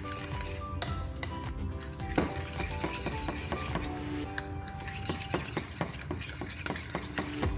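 A spoon stirring thick tahini paste in a ceramic bowl, scraping and clicking against the bowl many times in quick, uneven strokes, over background music.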